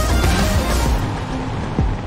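Background music with sustained melodic tones; it thins out in the highs about a second in.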